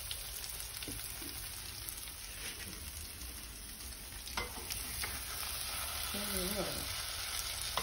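Cabbage, egg and cheese mixture sizzling in a nonstick frying pan, with a wooden spatula nudging and scraping at its edge and a few light taps against the pan.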